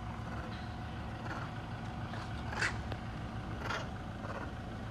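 Steady low motor rumble, with a few short hissing bursts in the second half.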